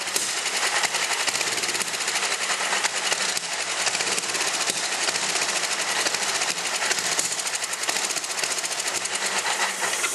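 Tecumseh small engine on a Toro snowblower running with a fast, rough rhythm, spitting back through the carburetor: a sign the owner takes for a bad intake valve.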